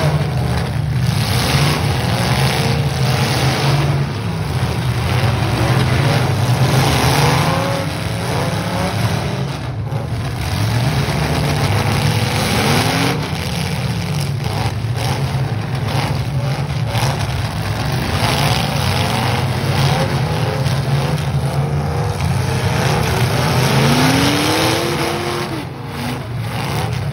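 Several demolition derby cars' engines running at once and revving, their pitch rising and falling. Now and then a sharp bang of the cars hitting each other.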